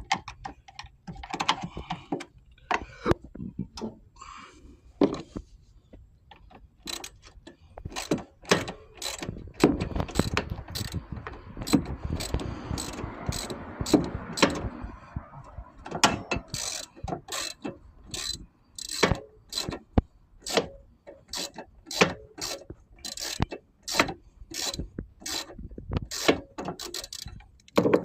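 Hand ratchet wrench clicking in short runs as bolts are loosened on a mower deck, with a rougher scraping stretch about halfway through.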